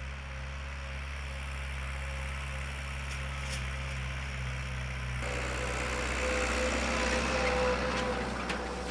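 Farm tractor engine running steadily with a low, even note. From about five seconds in, more hiss and clatter from the machine join it.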